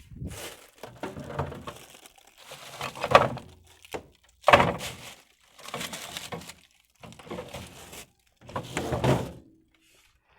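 A series of knocks and clatters, as of cookware being handled and set down, in about six separate bursts; the loudest come about three and four and a half seconds in.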